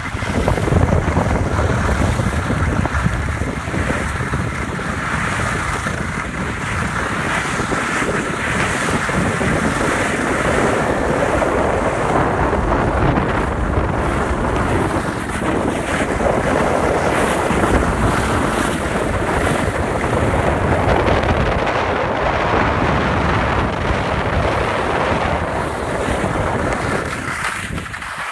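Steady wind rush over a moving camera's microphone during a ski run, mixed with the hiss of skis sliding over packed snow. It starts suddenly and eases off near the end.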